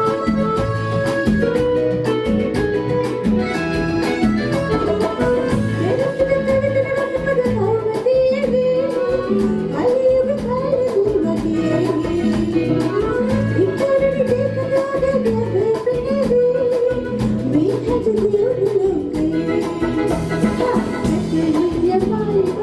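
A live band plays a song: a woman sings into a microphone over keyboards, bass and drums keeping a steady beat. The opening seconds are instrumental, and her voice comes in about six seconds in.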